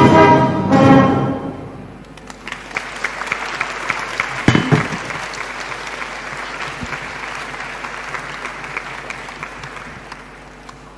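A brass band's closing chord rings out and ends about a second and a half in, followed by audience applause that slowly dies away. There is a single thump about four and a half seconds in.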